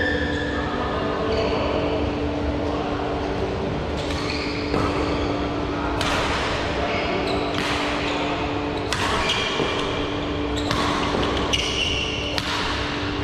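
Badminton rally in a large, echoing indoor hall: rackets strike the shuttlecock in a string of sharp cracks about once a second from about four seconds in, over a steady hum.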